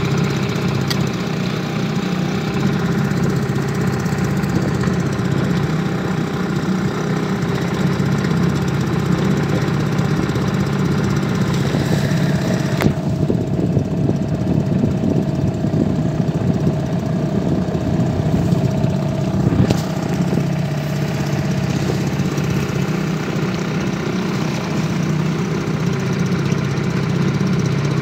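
Outboard motor of an inflatable PVC boat running steadily under way. Past the middle, the sound goes duller for about seven seconds, then brightens again.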